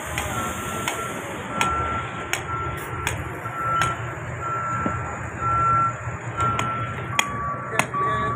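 A vehicle's reversing alarm beeping steadily, about one beep a second, over the low rumble of an engine. Sharp knocks come at a regular pace under it, and near the end the beeps drop to a lower pitch.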